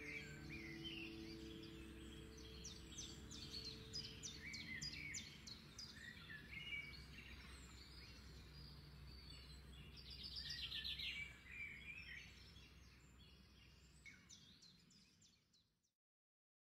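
Faint birdsong, many short chirps and trills with a fast trill about two-thirds of the way through, over a low held chord that dies away in the first few seconds. Everything fades out to silence near the end.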